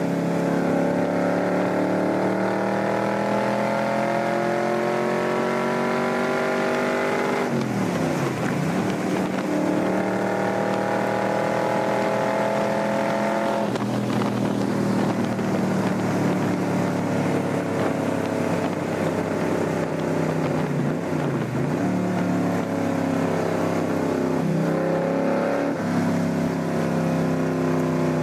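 Aluminum Cobra roadster's V8 engine pulling hard at speed, its pitch rising. It shifts gear about eight seconds in and pulls again, drops revs around fourteen seconds in, then cruises at fairly steady revs.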